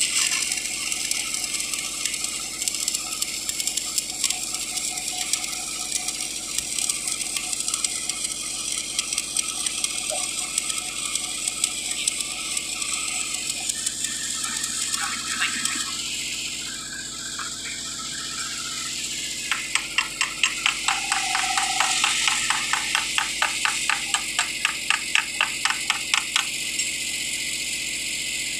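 Arc welding on pipe: a steady crackling, sizzling hiss from the arc, with a run of quick, evenly spaced ticks for several seconds in the second half.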